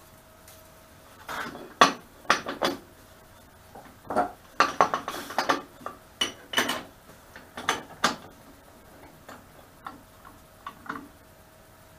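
Irregular metal clinks and clanks as lathe chuck parts, tools and the tool rest are handled by hand, with the lathe not running.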